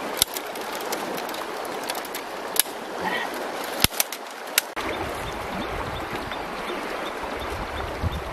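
Steady rush of river water, with a few sharp clicks and knocks as woven bamboo strips are bent and handled. A low rumble comes in abruptly about halfway through.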